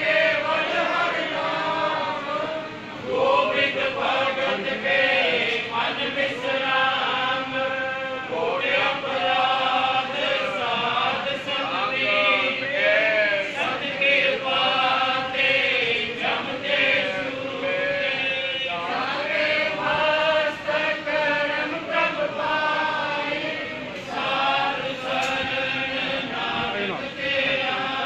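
A group of voices chanting together in a Sikh devotional chant, with long held notes that slide in pitch.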